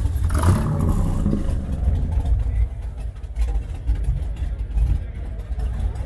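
Rat rod's engine running with a deep, steady rumble, and a quick throttle blip about half a second in whose pitch falls back over about a second.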